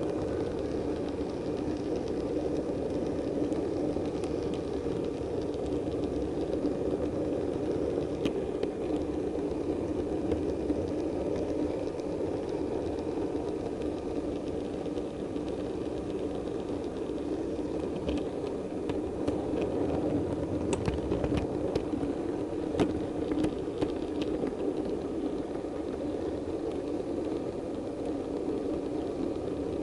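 Model diesel multiple unit running along the layout track: a steady motor and running hum, with a scatter of sharp clicks about two-thirds of the way through.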